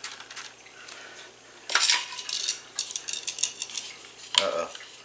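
Plastic slot-car track and power-pack parts being handled: a sharp clatter a little under two seconds in, light clicks after it, and another short clatter about four and a half seconds in.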